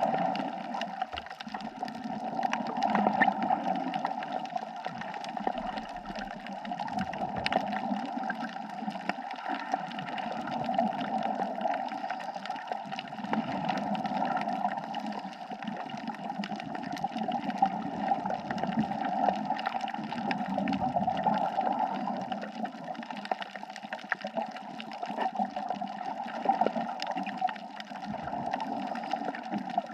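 Underwater ambient sound on a reef: a steady water noise that swells and ebbs slightly, with scattered faint clicks.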